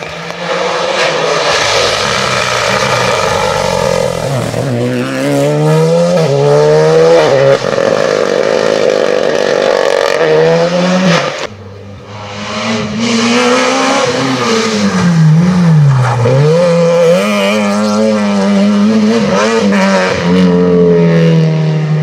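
Rally cars on a closed stage at full throttle, engines revving high, with repeated rising runs of revs and sharp drops as gears change and the driver lifts for corners. The first car fades about halfway through, and a second car takes over with the same pattern.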